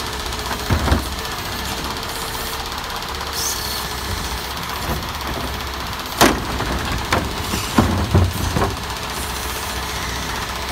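Garbage truck engine running steadily while its automated side-loader arm picks up a wheeled trash cart, with a knock as it grabs the cart about a second in. About six seconds in, a loud bang as the cart is tipped over the hopper, followed by several knocks as it is shaken out and lowered.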